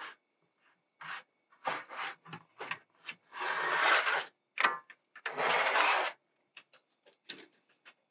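Metal frame of a greenhouse roof vent scraping and knocking against the roof ridge as its curled edge is hooked onto the ridge: a run of short scrapes and knocks, with two longer scrapes of about a second each in the middle.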